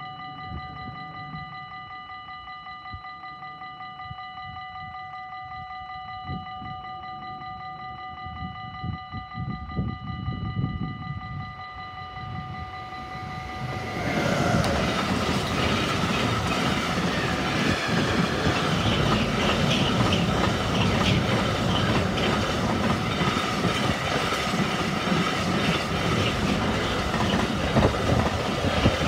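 A level-crossing warning bell rings as a fast-pulsing tone while a train's low rumble approaches. About halfway through, an RTB Cargo Siemens Vectron electric locomotive and its container flat wagons pass close by: loud steady rolling noise with wheels clattering over the rail joints.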